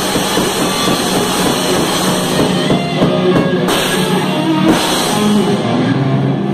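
Live rock band playing loud: distorted electric guitars, bass and drums, with cymbal crashes about four and five seconds in and held notes near the end.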